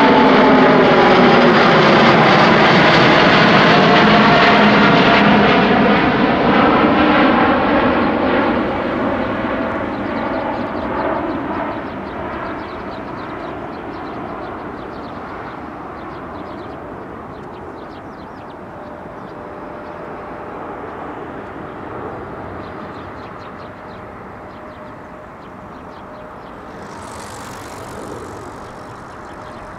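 Airbus A350-900's twin Rolls-Royce Trent XWB turbofans at takeoff thrust as the airliner climbs out overhead and away. The loud jet engine noise drops in pitch over the first few seconds as it passes, then fades steadily to a distant rumble.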